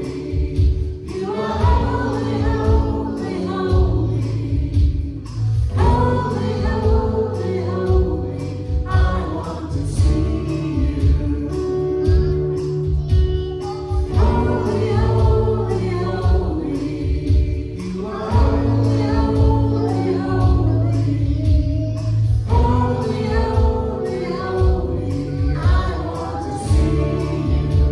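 Contemporary Christian worship song played by a band, with several voices singing phrases a few seconds long over a steady bass and drum beat.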